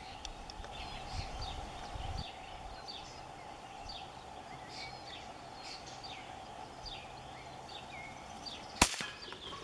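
A single rifle shot, one sharp crack about nine seconds in, that drops a rabbit. Before it, small birds chirp with short falling calls.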